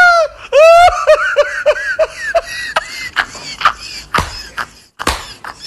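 A long, high-pitched vocal cry trails off at the start. Then a person laughs in a quick run of short, high 'ha-ha' bursts, about four a second, for roughly two seconds, and scattered sharp clicks follow.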